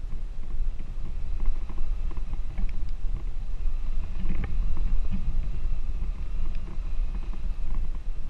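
Off-road vehicle driving slowly over a muddy, rocky dirt track: a steady low rumble with scattered small knocks and rattles.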